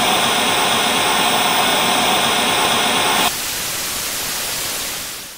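TV-static hiss sound effect, steady and loud. About three seconds in it changes to a softer, plainer hiss, then fades and cuts off.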